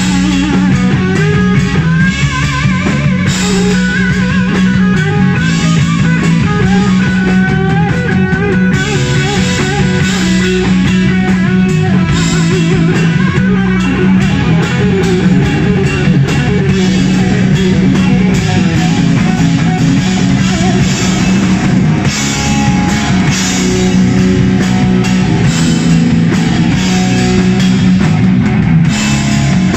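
Live blues-rock band playing loudly: a lead electric guitar with bending, wavering notes over electric bass and a drum kit.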